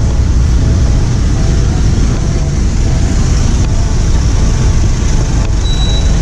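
Steady street traffic rumble from passing vehicles, with a brief high beep just before the end.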